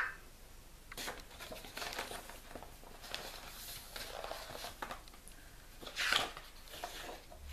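Faint rustling and handling noises from a paper picture book being held up and moved, with a louder brief swish about six seconds in.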